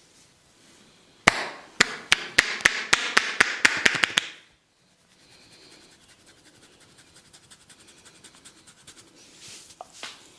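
A barber's hands striking rhythmically during a head massage: about a dozen sharp slaps over three seconds, quickening toward the end. This is followed by a much fainter, fast, even patter of light taps.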